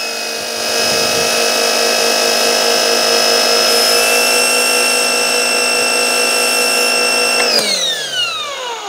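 Portland 1750 PSI electric pressure washer running with a steady whine and the hiss of its spray from the wand. Near the end the trigger is let go and the motor shuts off automatically, its whine falling in pitch as it spins down.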